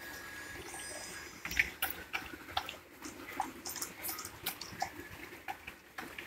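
Chocolate Labrador eating soft, wet food from a stainless steel bowl: irregular wet smacking, lapping and chewing, several small clicks a second.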